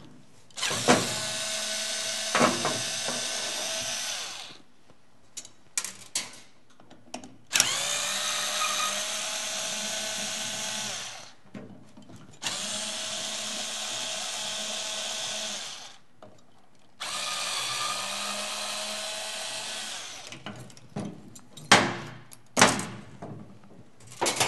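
Cordless drill/driver running in four separate bursts of about three to four seconds each, spinning up at the start of some, as it backs out the screws holding a small frame on a gyro unit. Small clicks and clatter of parts come between the runs, and there are a few sharp knocks near the end.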